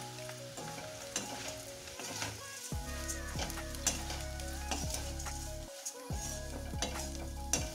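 Thick poha (flattened rice) sizzling in a little hot oil in a metal kadhai while a slotted metal spatula stirs it, with many sharp clicks and scrapes of the spatula against the pan. The poha is being fried until crisp.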